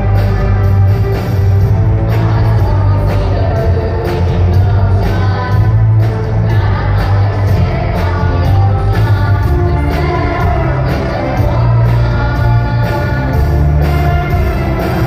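Loud live music from an electric string orchestra: held, pitched melody lines over a heavy, steady bass.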